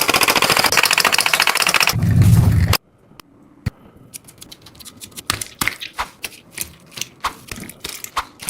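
Squishy fidget toy being squeezed and handled: a fast, dense crackling with a deeper rumble that cuts off abruptly about three seconds in, followed by quieter scattered clicks and crackles that come more often towards the end.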